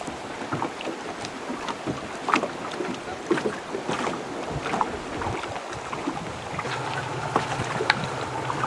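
Water splashing and lapping with irregular knocks and clicks, and a low steady hum that sets in near the end.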